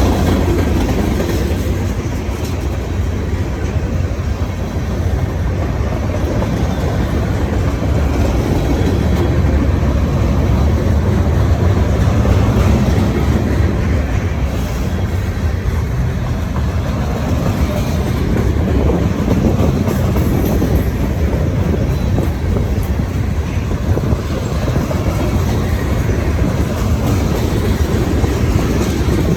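Freight cars of a long Norfolk Southern merchandise train rolling past, a steady loud noise of steel wheels on rail.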